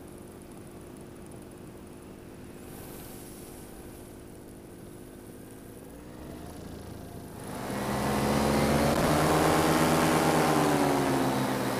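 Paramotor engine and propeller running steadily, then getting much louder about seven and a half seconds in, its pitch wavering up and down, with wind noise rising alongside.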